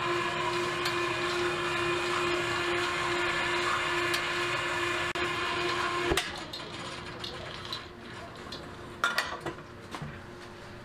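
A machine's electric motor runs with a steady hum, then cuts off suddenly about six seconds in; a few light clicks and knocks follow.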